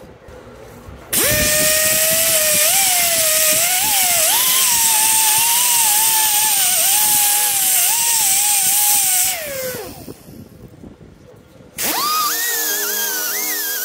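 Die grinder with a red abrasive disc grinding a steel wheel hub flange: a whine with a hiss, its pitch wavering as the disc bites. It winds down with a falling whine partway through, then starts again at a higher pitch near the end.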